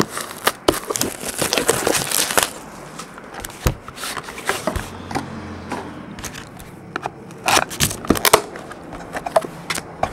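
Plastic wrap on a trading card box crinkling and tearing as it is peeled off, followed by scattered taps and clicks as the box is handled and its lid opened.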